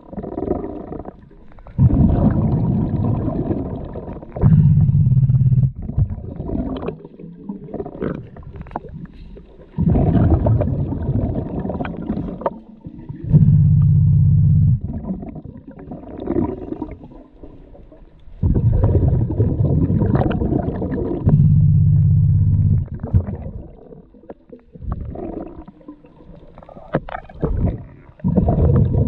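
A scuba diver's regulator breathing underwater: a noisy inhale of about two to three seconds, then a short, louder, low bubbling exhale, repeating about every eight seconds, three full breaths with a fourth starting near the end.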